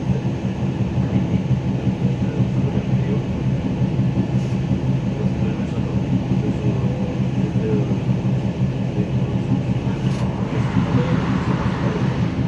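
Electric train running at speed, heard from inside the driver's cab: a steady low rumble of wheels on the rails, with a higher rushing noise joining about ten seconds in.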